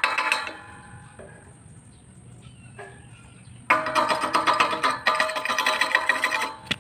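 Chipping hammer rapidly tapping slag off fresh welds on steel pipe, the pipe ringing with each strike. The tapping stops about half a second in, then starts again after about three seconds and runs for about three more.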